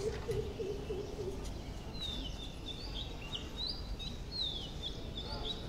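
Small birds chirping: a run of short, high, falling chirps from about two seconds in, over steady outdoor background noise. A low warbling sound runs through the first second and a half.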